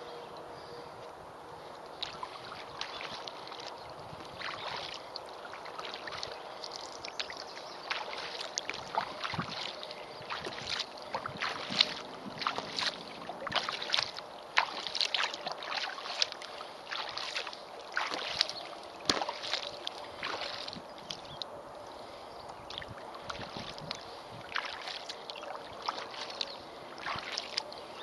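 Kayak paddling: the paddle blades dip and splash into the water with dripping in between, in short irregular splashes that are busiest in the middle stretch.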